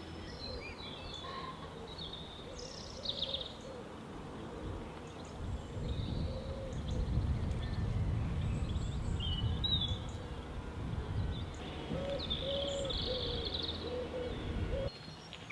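Small birds chirping and calling, with a low rumbling noise that swells from about five seconds in and cuts off suddenly near the end.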